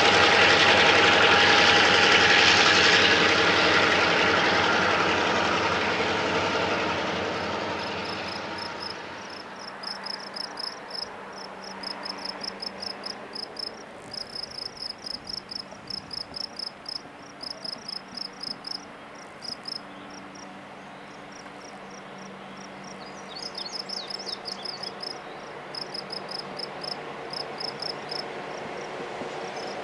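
EMD FP9 diesel locomotive running loud as the train passes close, fading away over the first eight seconds or so. Then a quieter stretch: the faint steady drone of the locomotive's engine as it comes back into hearing, under repeated groups of rapid high-pitched chirps.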